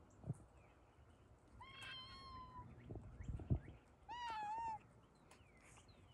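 Two high-pitched bleats from two-week-old American Blackbelly lambs: a level one of about a second, then a louder, wavering one near the middle. A few dull thumps fall around them.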